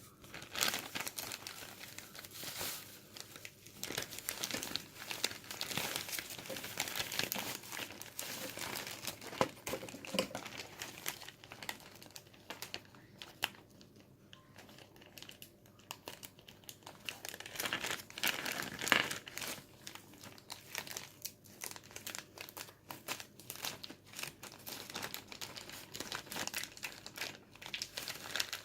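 Plastic packaging crinkling and rustling as it is handled, a dense run of irregular crackles that starts suddenly and keeps going, rising and falling in loudness.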